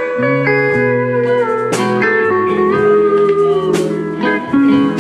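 Band playing a slow soul ballad, an instrumental fill between sung lines: held guitar notes that slide in pitch over bass, with drum or cymbal hits about two and four seconds in.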